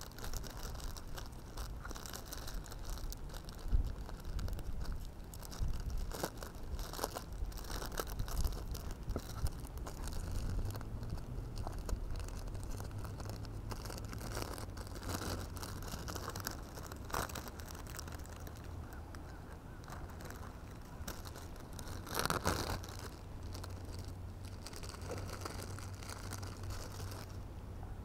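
Small plastic bag crinkling and rustling as it is handled, with irregular crackles throughout and a louder rustle about 22 seconds in.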